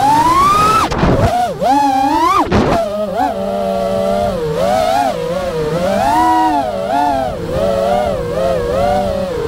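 Brushless motors and propellers of a Diatone Roma F5 5-inch FPV quadcopter whining in flight, the pitch swooping up and down constantly with the throttle. Two brief rushes of air cut through about one second and two and a half seconds in.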